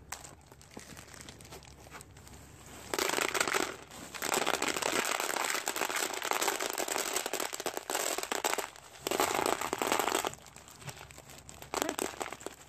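Dry beans rattling and shifting as a ferret digs and burrows through a tub full of them. Loud stretches begin about three seconds in, with two short pauses.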